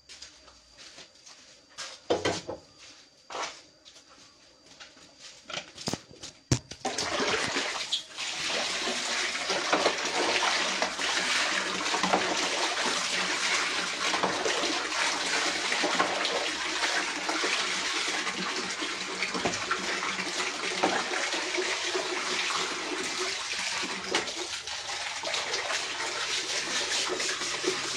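Steady rushing of water that starts suddenly about seven seconds in, after a few scattered knocks and clicks.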